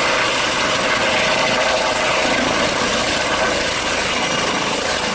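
Eurocopter EC135 air-ambulance helicopter hovering close by: steady rotor and turbine noise with a thin high whine over it.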